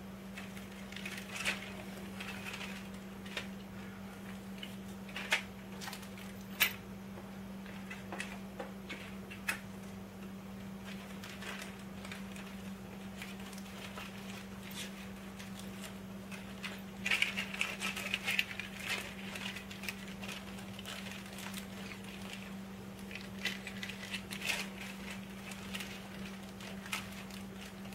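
Plastic bags crinkling and packing rustling as items are handled and lifted out of a cardboard box, with scattered light clicks and a busier stretch of rustling a little past halfway. A steady low hum runs underneath.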